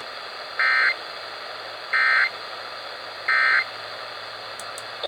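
Emergency Alert System end-of-message signal: three short bursts of SAME digital data warble, about a second apart, marking the end of the alert test. They sound over the steady hiss of a radio broadcast received through an online software-defined radio, and the hiss drops away right at the end.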